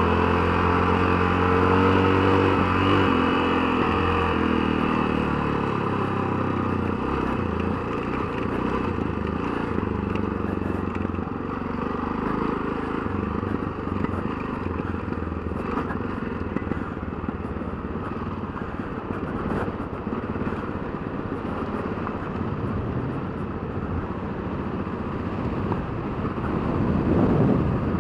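Motorcycle engine under way at speed. In the first few seconds the revs climb and drop in steps, as in shifting up through the gears, then it runs on at a steady pace, mixed with a rough rush of wind.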